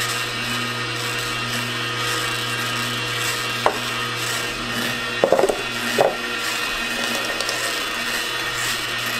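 Kuvings commercial slow juicer's 200-watt motor running with a steady hum as it presses juice. A few sharp knocks come near the middle as containers are handled.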